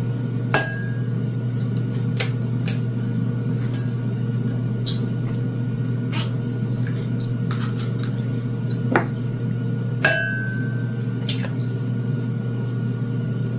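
Two eggs cracked on the rim of a glass mixing bowl: a sharp tap about half a second in and another about ten seconds in, each leaving the glass ringing briefly. Lighter clicks of shell and bowl come in between, over a steady low hum.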